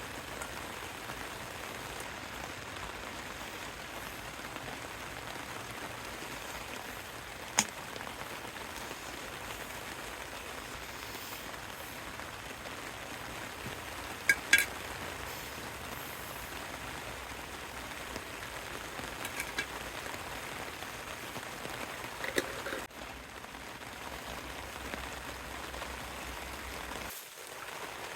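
Steady rain falling, with a few louder single drips or taps standing out now and then.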